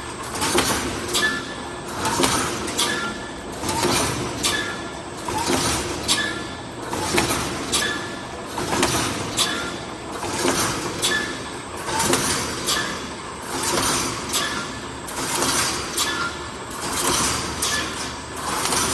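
Automatic wire mesh panel welding machine, fed with pre-cut line and cross wires, running through its repeating weld cycle. A clanking stroke with sharp metallic clinks comes about every second and a half, each with a short high tone.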